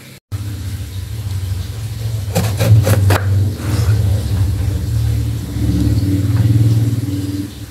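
A motor engine running with a low, steady hum that swells and then fades near the end. A few sharp knocks from the knife on the wooden cutting board sound about two and a half to three seconds in.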